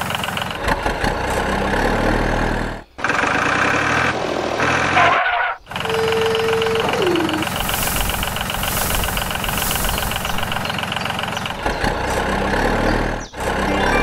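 Truck engine sound running steadily, dropping out briefly three times where the clips change. About six seconds in, a short steady tone ends in a falling glide.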